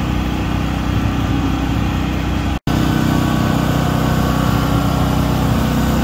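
An engine idling steadily. The sound drops out briefly at a cut about two and a half seconds in, then an engine carries on idling.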